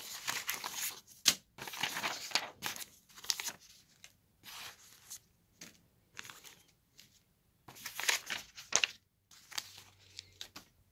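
Sheets of paper and printed leaflets rustling as they are handled and laid down on a printer lid, in a series of short bursts with a few sharp clicks.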